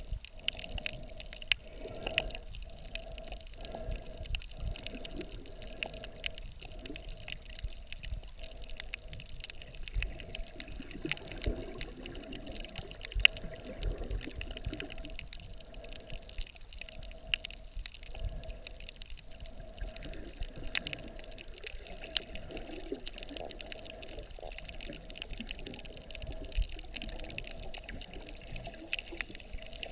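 Underwater sound picked up by a camera in a waterproof housing while snorkeling: muffled water movement with a steady hum, and frequent sharp clicks and crackles, one louder click about halfway through.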